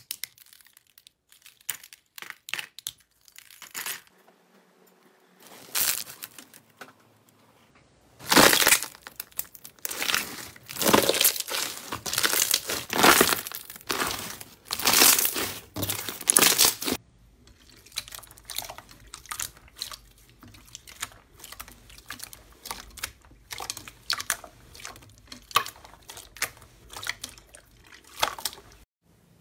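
Slime being squeezed and poked by hand, making crackling and popping clicks. The crackling is sparse at first, turns dense and loud from about eight to seventeen seconds in, then thins out again.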